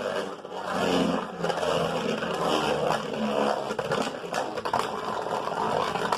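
Beyblade Burst top Winning Valkyrie (Wonder Valtryek) spinning in a stadium with a steady scraping whir.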